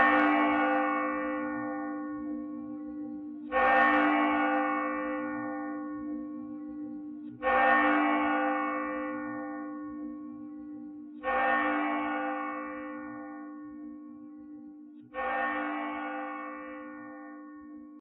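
Large cast church bell on a yoke with a rope wheel, tolled in five strokes about four seconds apart. Each stroke rings on and fades, over a low hum tone that sounds throughout.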